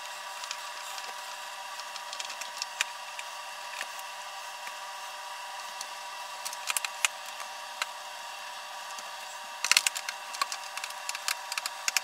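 A screwdriver backing screws out of a plastic coffee maker housing: scattered small clicks and creaks, bunched in two short flurries near the middle and near the end, over a steady hiss.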